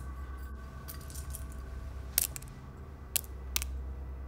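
A steady low hum with faint sustained tones above it, and a few short sharp clicks: one about two seconds in and two more about a second later.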